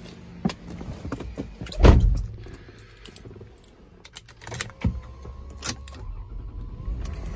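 A heavy thump about two seconds in as the car door shuts, then keys clicking and jingling at the ignition. Near the end the 2004 Lexus RX 330's 3.3-litre V6 starts and settles into a low, steady run, with faint steady tones from the cabin.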